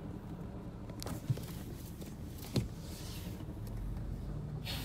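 Low, steady rumble of road traffic, with two short clicks about a second and two and a half seconds in. A vehicle's engine rumble swells near the end.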